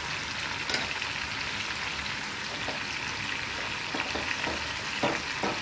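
Boiled chicken feet sizzling in a hot pan: a steady crackling hiss, with a few sharp pops near the start and in the last second or so.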